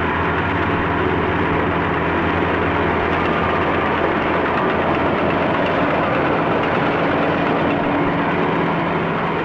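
Steady, loud mechanical noise of heavy machinery with a constant hum running through it.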